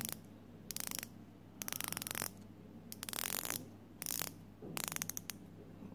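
The unidirectional dive bezel of a Steinhart Ocean One Green watch being turned by hand, ratcheting in five short runs of rapid clicks.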